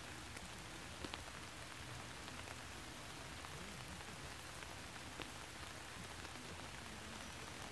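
Faint, steady outdoor hiss, with a couple of small faint ticks.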